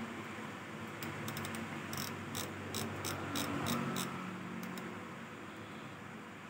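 A large Shimano Twin Power 8000HG spinning reel being worked by hand, giving a run of sharp, evenly spaced mechanical clicks, about two to three a second, that starts about a second in and stops near the five-second mark.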